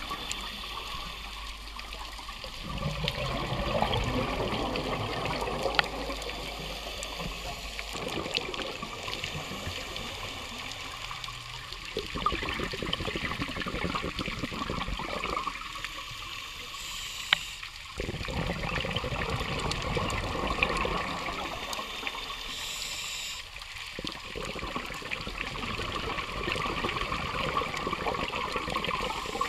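Scuba diver's breathing heard underwater: a rushing, bubbling noise that swells and falls back in long cycles every five or six seconds.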